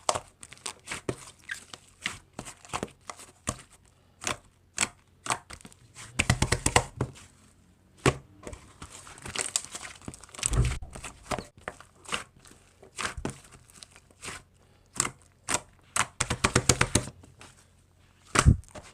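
Slime being squeezed and poked by hand, making a steady run of sticky clicks and pops, with thicker bursts of crackling several times.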